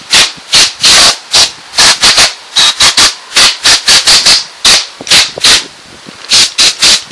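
Compressed-air blow gun fired in short, rapid blasts of hissing air, about three a second, blowing dust out of a desktop PC case.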